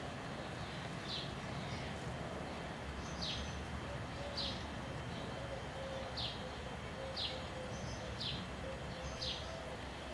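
A bird repeating a short, high, falling chirp about once a second, over a low steady background rumble.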